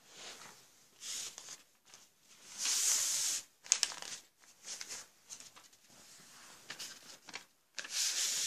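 Rustling and rubbing noises in short irregular bursts, with a few sharp clicks about four seconds in; the loudest rustle comes about three seconds in and another near the end.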